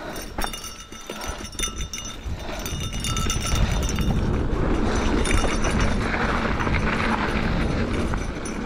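Esker Japhy single-speed mountain bike rolling over a dirt trail: knobby tyres on dirt and the bike clattering and clinking over bumps. About three seconds in it turns into a louder, steady rush of tyre and wind noise.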